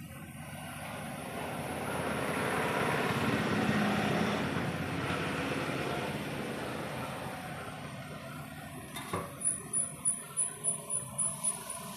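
A vehicle going by, its noise swelling to a peak and then fading away, followed near the end by a quick run of about nine short, high-pitched beeps or ticks.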